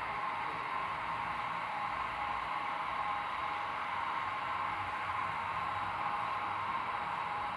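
Model Santa Fe F7 diesel locomotives passing on a layout: a steady hiss and drone of the running train, with a steady mid-pitched hum.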